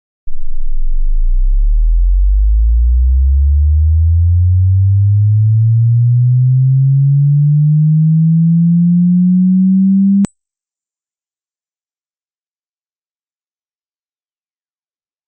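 Pure sine-wave test tone sweeping slowly upward from deep sub-bass to a low hum over about ten seconds, then jumping abruptly to a piercing high whine that keeps rising toward the top of human hearing. It tests how well headphones reproduce sub-bass and high treble.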